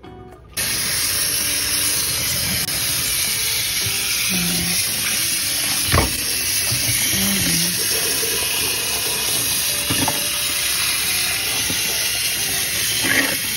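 Kitchen tap turned on about half a second in, then running steadily into a sink as a sturgeon is rinsed under it. A few short knocks come as the fish is handled against the sink.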